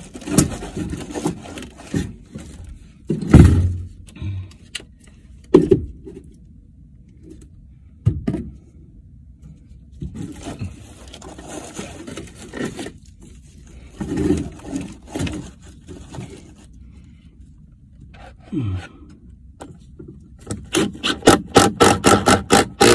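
Wire live-trap cage being handled, scraping and knocking against wooden framing, with a few heavy thumps. Near the end comes a quick run of regular sharp clicks.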